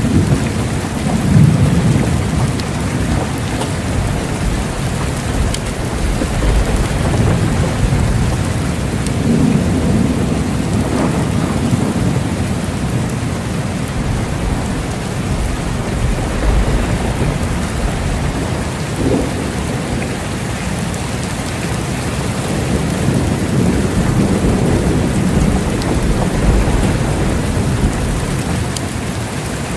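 Steady rain falling, with low rolling thunder swelling and fading underneath a few times.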